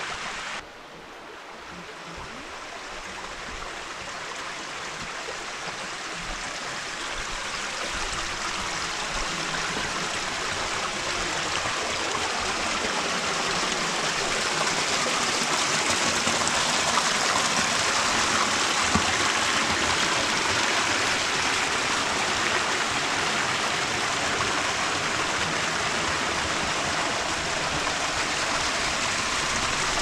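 Rushing water of a mountain stream cascading over waterfalls into rock pools: a steady, even rush that grows louder over roughly the first fifteen seconds, then holds.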